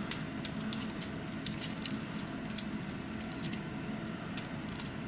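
Light, irregular clicks and taps of a plastic transforming action figure (Takara Tomy Lost Age AD11 Dispensor) being handled, its parts snapping and pegging into place.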